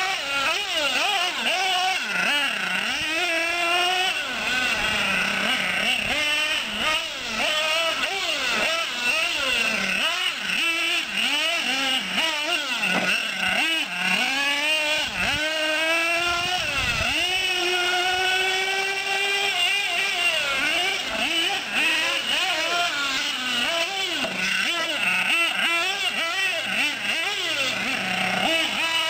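Nitro-fuelled R/C off-road car's small glow engine, revving high and easing off again and again as it is driven around the track, its pitch swooping up and down without a break.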